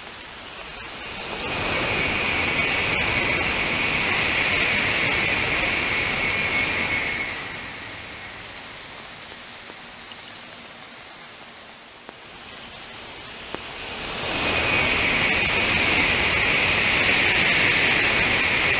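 Two Shinkansen high-speed trains passing on wet track in rain, each a rush of noise that rises, holds for about six seconds and fades. A steady rain hiss fills the gap between them.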